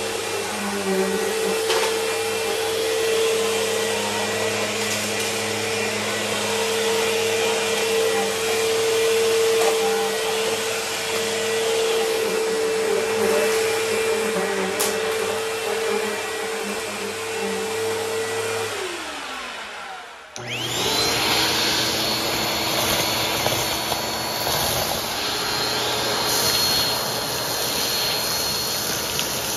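Bissell upright vacuum cleaner running steadily over a rug with a strong motor hum. About two-thirds of the way through it is switched off and winds down with a falling tone. After a brief break, a second Bissell vacuum starts with a quick rising whine that settles into a steady high-pitched run.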